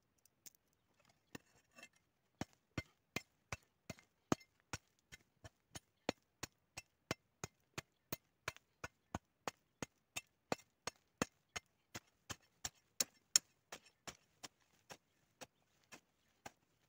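Short-handled hand hoe chopping into dry, clumpy red soil in a quick, even rhythm of about three sharp strikes a second, starting a second or so in.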